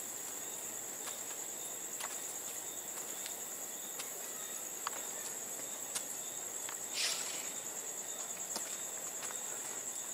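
Night insects trilling in a steady, high, continuous chorus, with a few faint clicks and a brief rustle about seven seconds in.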